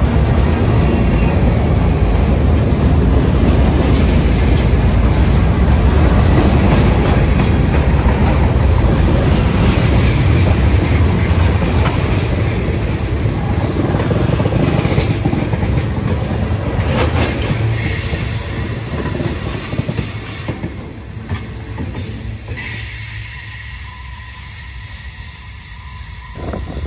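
Freight train of centerbeam flatcars and tank cars rolling past close by: steel wheels clattering and rumbling on the rails, with thin wheel squeal. The sound fades over the last third as the end of the train goes by.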